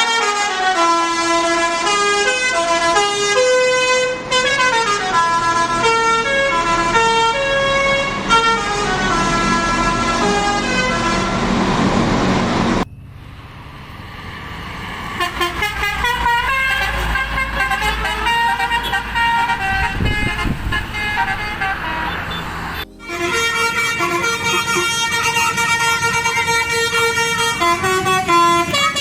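Bus 'telolet basuri' multi-tone air horn playing tunes, its notes stepping up and down in pitch. About 13 seconds in the sound cuts off suddenly, and the horn comes back quieter over a low rumble. A cut about 23 seconds in brings the loud tune back.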